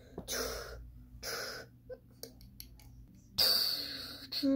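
Breathy, hissing mouth sound effects for a toy monster fight: two short bursts near the start, a few faint clicks, then a longer, louder hiss about three and a half seconds in.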